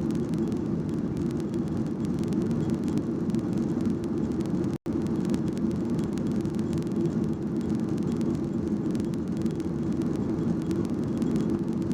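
Steady jet engine and airflow noise inside the cabin of a Skymark Boeing 737-800 airliner, a constant low rumble that cuts out for an instant just under five seconds in.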